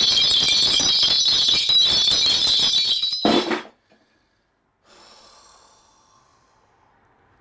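Small metal bells shaken rapidly in a steady, bright jingle that stops abruptly about three and a half seconds in, followed by near silence.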